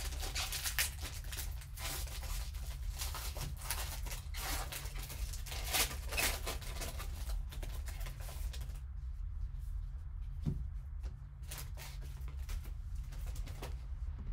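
Foil trading-card pack wrapper crackling and tearing as it is ripped open and a stack of cards is pulled out. The rustling dies down after about nine seconds to a few light clicks.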